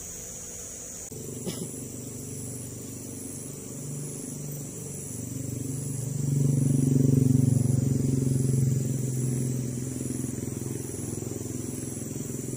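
A motor vehicle's engine running steadily, growing louder to a peak midway and then fading as it passes. Over it, a high chirp repeats about twice a second.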